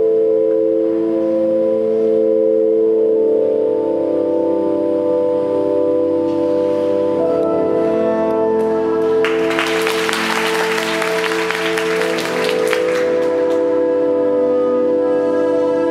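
Slow orchestral music with sustained brass and wind chords, the skater's program music. About nine seconds in, the audience breaks into applause for about four seconds after a jump.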